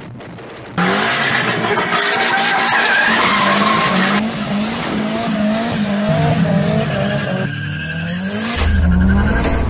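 Car engines revving hard with tires squealing through a burnout and a drift, the engine pitch rising and falling again and again. The sound changes abruptly twice as one clip cuts to the next.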